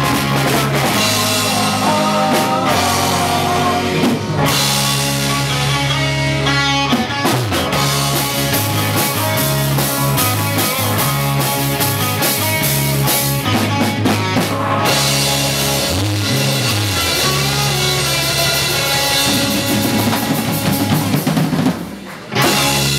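Live rock band playing loud: electric guitars over a full drum kit. The music drops briefly near the end, then comes back in loud.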